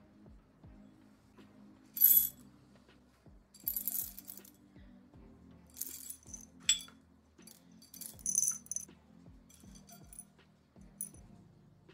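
Coffee-brewing gear being handled: about six sharp clinks with brief high ringing, a second or two apart, the loudest about two seconds in. Quiet background music runs underneath.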